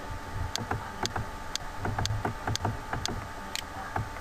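Computer mouse clicking, sharp single clicks about two a second, over a steady hum.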